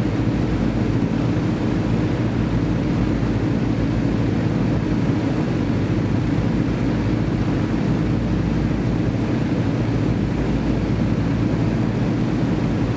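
Avro Shackleton Mk3's Rolls-Royce Griffon V12 piston engines running steadily on a ground run, turning their contra-rotating propellers.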